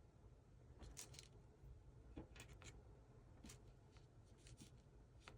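Near silence with a few faint, scattered clicks and rustles of small items being handled.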